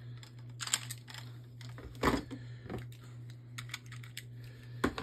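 Scattered light plastic clicks and taps as Beyblade tops and a ripcord launcher are handled, at irregular moments, over a steady low hum.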